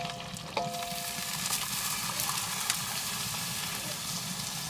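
Beer poured from a bottle into a hot pan around a whole chicken roasting in an offset smoker, sizzling steadily as it hits the hot pan.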